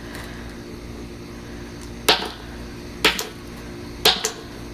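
Three sharp hammer blows about a second apart on a bag of broken statue pieces, starting about two seconds in, as the statue is smashed to destroy it.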